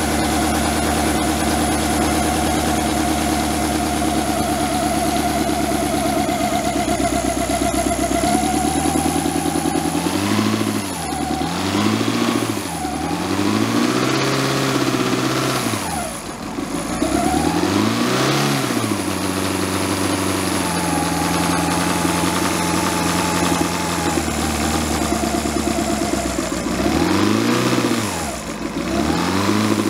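Seal Major 30cc side-valve four-cylinder model petrol engine running with a silencer fitted. It runs at a steady speed for the first several seconds, then is revved up and back down several times.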